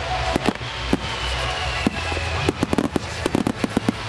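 Fireworks starmine barrage: aerial shells bursting in a rapid, irregular string of sharp bangs, thickest in the second half, over music.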